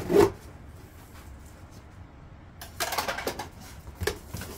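Cardboard box and packing being handled while it is opened: a short knock just after the start, a quiet stretch, then a flurry of rustles and clicks about three seconds in and another click near the end.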